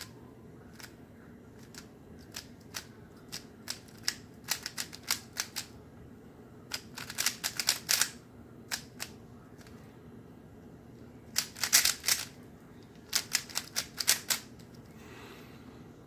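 Rubik's Cube being turned one-handed: the plastic layers click in quick runs of turns, with short pauses between runs.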